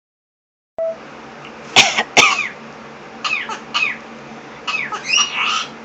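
Hawk-headed parrot making a run of short, sharp calls, each dropping in pitch, in several bursts.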